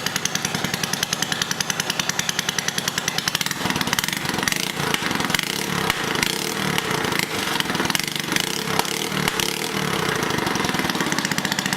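1983 Honda ATC 110's small four-stroke single idling on choke just after a cold start, a fast, even putter. From about four seconds in until about ten seconds in the firing turns ragged and uneven, then settles again.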